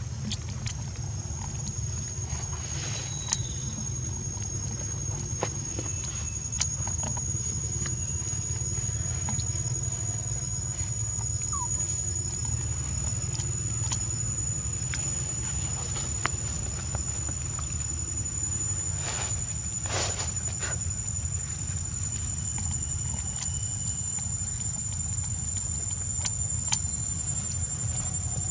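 Outdoor background: a steady low rumble with a thin, high, steady whine above it, and a few faint scattered clicks and rustles.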